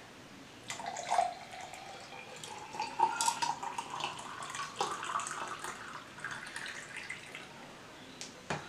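Grape juice poured from a jug into a tall glass: a splashing stream whose pitch rises steadily as the glass fills. A short knock comes near the end.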